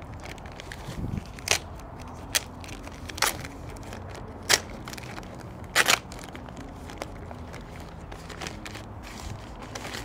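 Clear plastic packaging bag crinkling and crackling as it is opened and a remote controller is pulled out of it, with about five sharp crackles in the first six seconds, then softer rustling.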